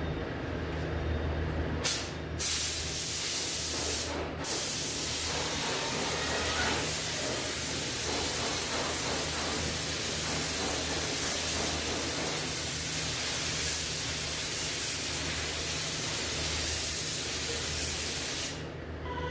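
Compressed-air paint spray gun hissing as it sprays paint onto a car body panel. It starts about two seconds in, breaks off briefly twice, then runs steadily until it stops shortly before the end, over a low steady hum.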